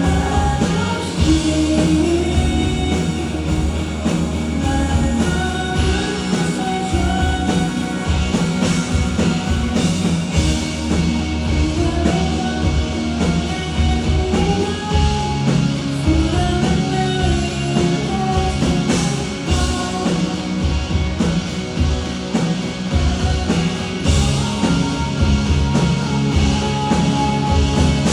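A live rock-style song played by a band, with a sung melody over guitar and bass.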